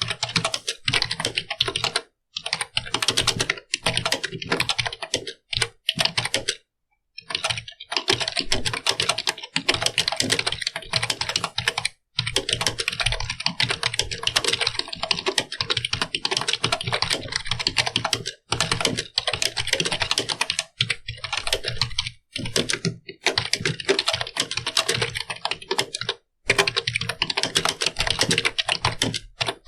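Computer keyboard being typed on fast and steadily, a dense run of key clicks broken by brief pauses every few seconds.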